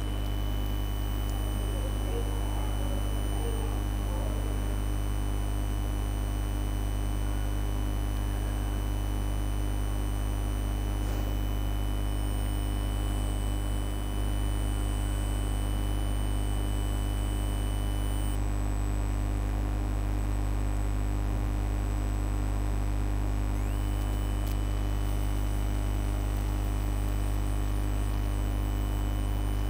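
Steady low electrical mains hum, with a faint high-pitched whine over it that drops out about 18 seconds in and returns about 24 seconds in.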